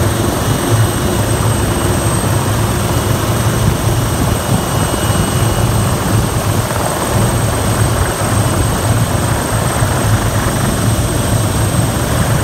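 Hughes 500D helicopter running on the ground with its main rotor turning: a steady pulsing rotor beat under a constant high turbine whine.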